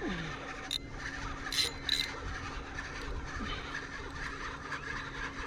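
Steady low hum with a constant wash of background noise, broken by a few short sharp clicks in the first two seconds.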